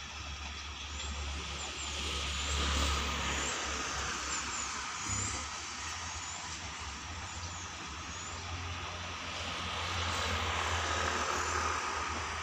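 Steady low engine rumble with a hissing noise that swells twice, from a vehicle out of sight, with faint high chirps over it.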